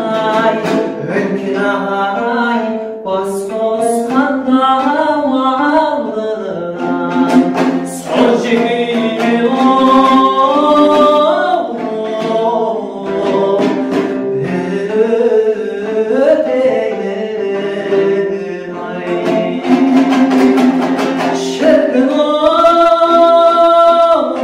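A song: singing with instrumental accompaniment.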